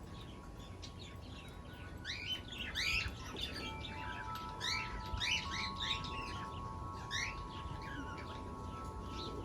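Five-week-old lovebird chirping: a string of short, quick rising chirps in clusters that picks up about two seconds in and keeps going.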